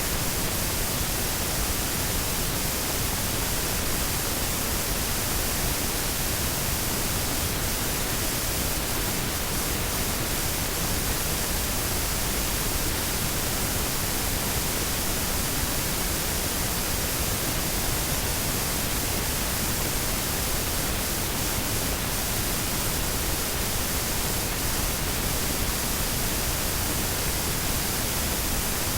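Steady, even hiss of noise that does not change, with no rhythm, tones or knocks.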